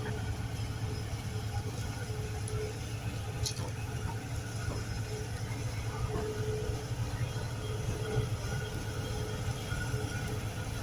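Diesel engine of working earthmoving machinery running steadily, a low continuous drone with a few faint clicks.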